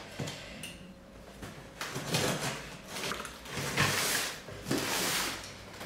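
Scissors slicing through packing tape on a cardboard box, with the cardboard scraping, in three strokes of up to a second each, about two, four and five seconds in.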